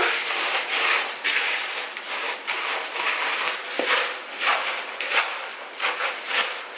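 Cornflakes coated in melted peanut butter and butterscotch being stirred and worked in a plastic mixing bowl. The flakes crunch and rustle in repeated strokes, about two a second.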